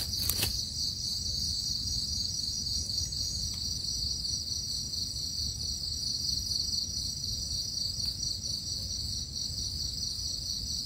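Steady high-pitched trilling of insects, with one light click about half a second in.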